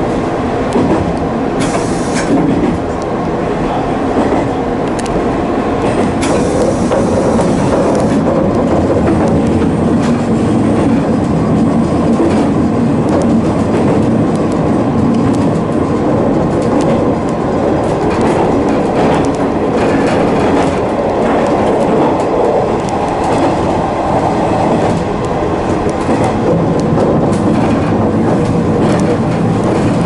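A 185 series electric train running along the line, heard from inside the driver's cab: steady running noise from the motors and wheels on the rails. Scattered clicks come from the wheels passing over rail joints.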